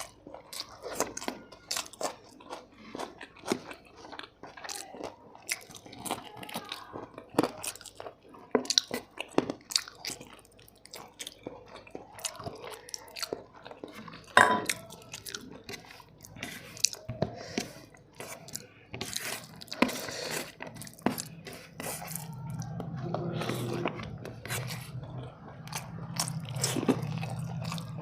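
Close-miked eating of biryani: wet chewing, biting and crunching, with many short clicks and snaps from the mouth. A low steady hum joins in for the last few seconds.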